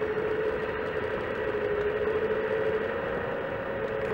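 Hydraulic pump of a Wedico CAT 345D LME RC excavator running with a steady whine, dipping slightly in pitch about halfway through and then recovering as the arm and bucket are worked.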